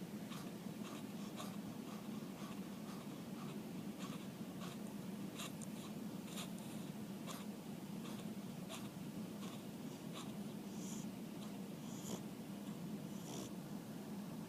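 A sleeping pet snoring: a steady low drone with scattered short clicks and snuffles.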